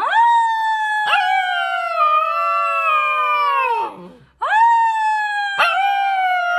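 A husky-type puppy howling: two long howls. Each rises quickly at its start and then slides slowly down in pitch, and the second begins about four and a half seconds in.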